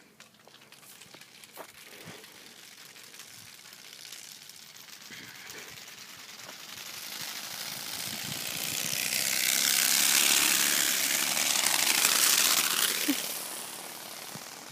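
Playing cards taped to a BMX bike flapping against the wheel spokes as it is ridden past: a fast, motor-like rattling buzz that builds over several seconds, is loudest for a few seconds, then fades as the bike moves off.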